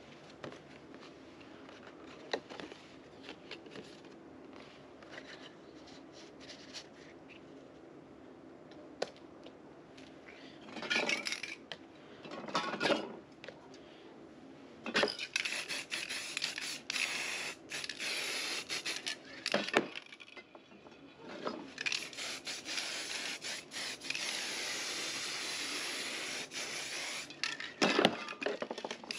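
Aerosol spray-paint can hissing as paint is sprayed over a stencil, first in short bursts and then in one long steady spray. Some louder rustling and knocking come before it.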